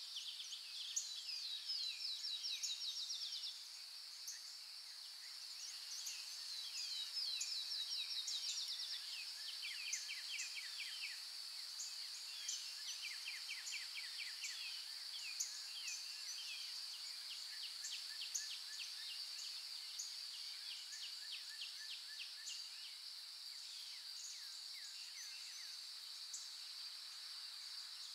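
Outdoor ambience: a steady high-pitched insect drone with birds chirping in quick repeated trills over it.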